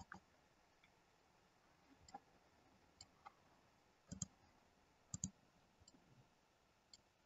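Faint computer mouse clicks, a scattered handful with a couple of quick press-and-release pairs, against near silence.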